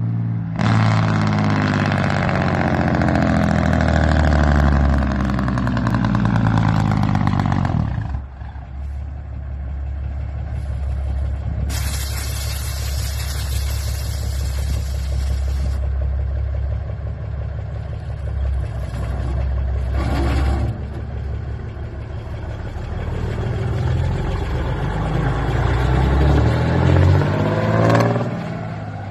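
Diesel engine of a custom Peterbilt hot-rod tractor with open chrome stacks, running loud. Its sound drops off suddenly about eight seconds in and runs lower for a long stretch. Near the end it revs up as the truck pulls through the turn past, with the pitch bending as it goes by.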